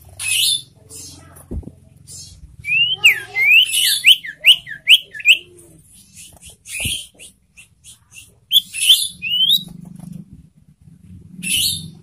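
A sirtu (common iora) calling. Harsh, rasping chatter notes are broken about three seconds in by a quick run of about eight sharp downslurred whistles, the loudest part, with a few more short chirps near nine seconds.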